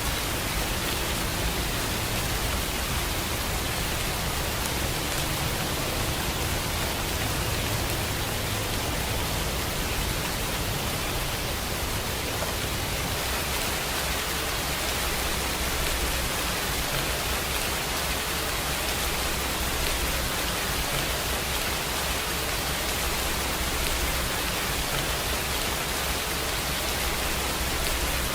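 Steady rain falling, an even hiss that does not change in level.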